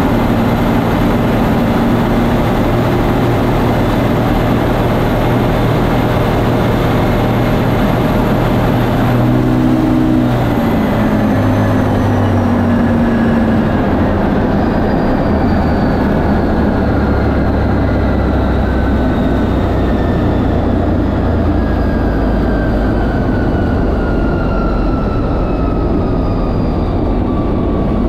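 Turbocharged race-truck engine under full load at high speed, with heavy wind rush past an exterior camera. About ten seconds in the engine note changes step, and later a thin whine slowly falls in pitch.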